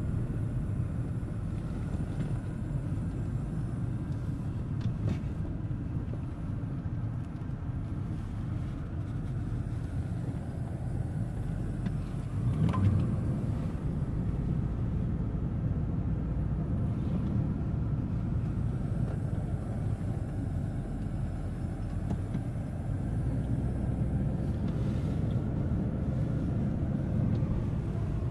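Steady low rumble of a car's engine and tyres heard from inside the cabin as it creeps along in slow traffic, with a brief louder swell about halfway through.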